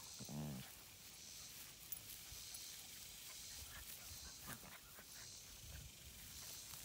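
Golden retriever puppies play-wrestling: one short low growl about half a second in, then faint scuffling.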